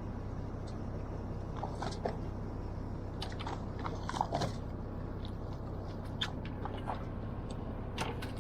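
Fishing boat's engine running with a steady low hum, under scattered small clicks and knocks.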